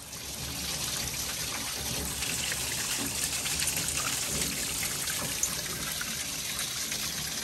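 Water pouring and splashing steadily out of the open top radiator hose as a garden hose pushes water backwards through an engine's cooling system, the thermostat removed. The flow is strong, a sign that the radiator is not restricted.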